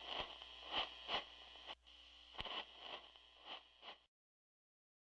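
Faint crackling static: a hiss over a low hum, broken by irregular clicks about twice a second. It cuts off abruptly about four seconds in.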